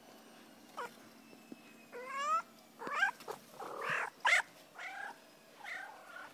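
Domestic cat chirping: a string of short chirps, several bending up in pitch, that come in quick succession after about two seconds.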